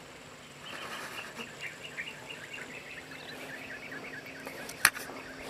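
Outdoor ambience of a rural field with a quick run of high, repeated chirping calls for about three seconds, then a single sharp click near the end.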